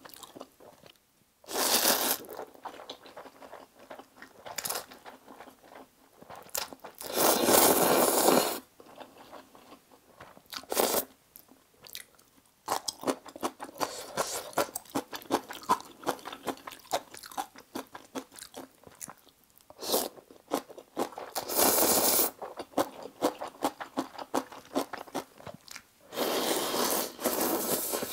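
Close-miked eating of spicy instant noodles: steady wet chewing and crunchy bites of kimchi, broken four times by long, loud slurps of noodles and broth, the last as broth is sipped from a spoon near the end.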